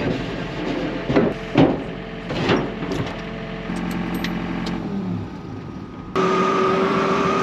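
Heavy wooden loading ramps knocking a few times against a steel trailer deck while a 5-tonne excavator's diesel engine idles. About six seconds in the engine steps up to a louder, steady whine as the excavator is throttled up in its cab.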